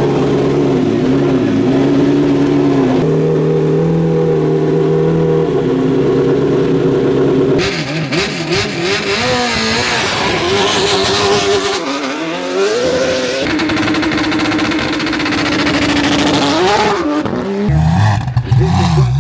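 Hillclimb race car engine held at steady high revs on launch control, stepping up once in pitch about three seconds in. About seven and a half seconds in it launches, and the engine revs rise and fall repeatedly as it pulls away through the gears.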